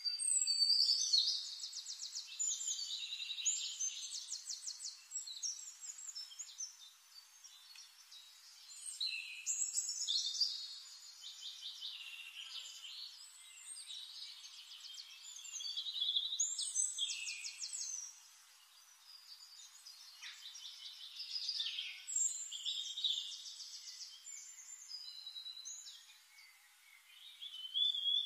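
Forest birdsong: a songbird singing bright phrases of rapid trills and whistles, a new phrase every few seconds.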